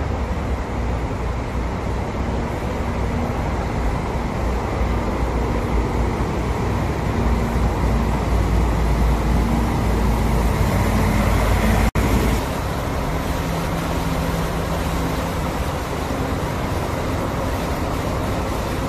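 City bus engines and road traffic: a heavy engine runs with a steady low drone that grows louder and brighter, then cuts off abruptly about twelve seconds in. Another engine's steady running follows.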